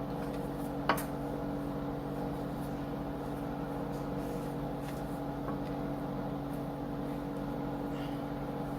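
Steady low background hum, like a running kitchen appliance or fan, with a single sharp click about a second in and a few faint ticks later.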